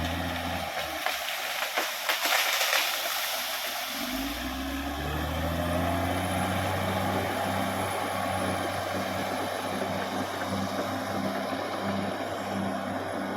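Caterpillar D6R XL bulldozer at work: sharp cracks and snaps in the first few seconds, then its diesel engine revs up about four seconds in and runs steadily under load.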